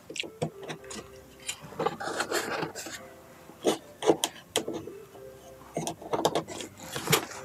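Tight-fitting plywood parts being pressed and worked together by hand: a run of irregular small wooden knocks and clicks with some rubbing as the joints are pushed into place.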